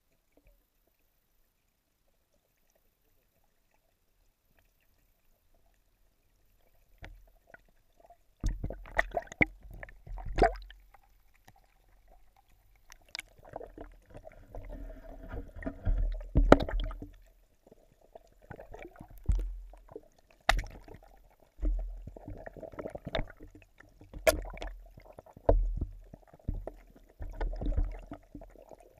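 Water sloshing and gurgling heard through a camera held under the water of a fish pond, in irregular swells every second or two, with sharp knocks and clicks. It starts after a long near-silent stretch.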